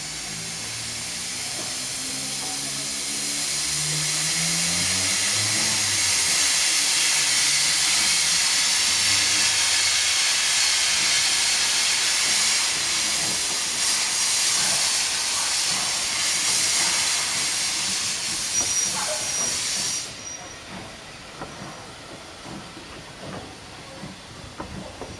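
RSH 7151 steam locomotive starting away with its cylinder drain cocks open: a loud, steady hiss of steam that builds over the first few seconds and cuts off abruptly about twenty seconds in as the cocks are closed. After that the coaches roll on more quietly, with light clicks and knocks from the wheels.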